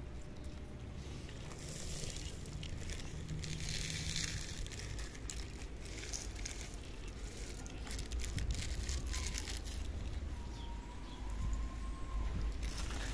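Several cats eating dry kibble together: a dense, irregular run of small crisp crunches as they chew.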